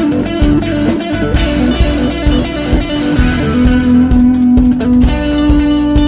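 Instrumental break of a rock song: electric guitar playing long held notes over bass guitar and a steady drum beat, the held note stepping down about halfway through and back up near the end.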